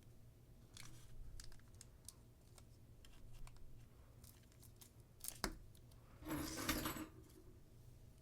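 Foil Pokémon booster pack wrapper being handled and torn open: scattered crinkles and snaps, with a louder ripping rustle about six seconds in.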